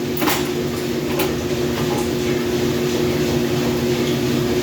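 Loud washing machine running with a steady mechanical drone of two held tones over a low rumble, with two short clicks in the first second or so.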